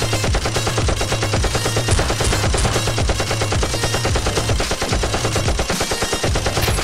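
Rapid automatic gunfire in one continuous burst of closely spaced shots: a dubbed machine-gun sound effect.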